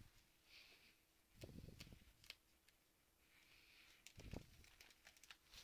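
Faint rustle and crinkle of plastic card-binder sleeve pages being handled and turned over, twice, with a few small clicks in between.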